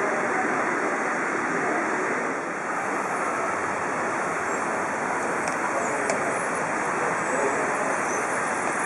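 Steady din of a crowd in a large hall: many people talking indistinctly, blending into an even hiss.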